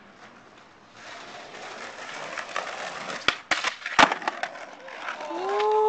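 Skateboard wheels rolling over pavement, with several clacks of the board and one loud smack about four seconds in. Near the end a person lets out a long held shout.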